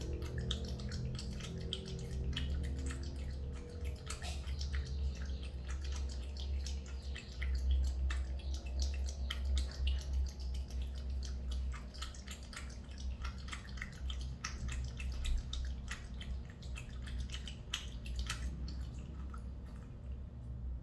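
Cat lapping water from a tub: a fast, uneven run of small wet clicks and drips that is loud for a cat drinking, like a typewriter. A steady low hum sits underneath.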